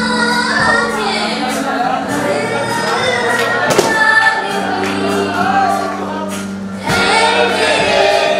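Music with singing over instrumental accompaniment: sung voices gliding over steady held low notes, with scattered percussive hits.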